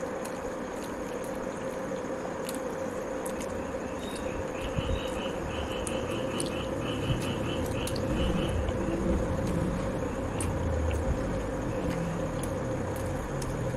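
Close-up eating sounds: chewing with small wet mouth clicks, and fingers tearing a poori and scooping cabbage from the plate, over a steady background hum. A quick run of high chirps comes in the middle.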